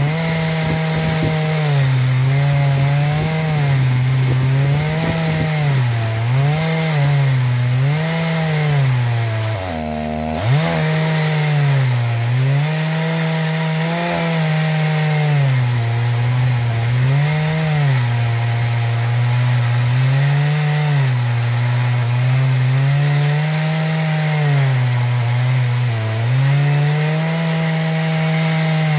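A 68cc Sachs Dolmar 120si two-stroke chainsaw running under load, ripping a slab along a log in an Alaskan chainsaw mill. The engine pitch keeps sagging and recovering as the bar takes the cut, and about ten seconds in it drops sharply before picking back up.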